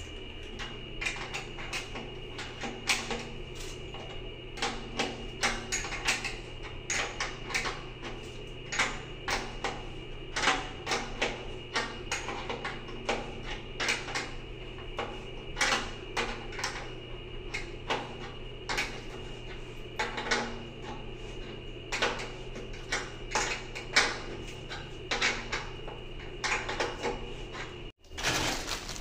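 Irregular clicks and knocks of hands working plastic toilet fitting parts against a tiled floor, several a second, with a faint steady high tone underneath. The sound drops out for an instant near the end.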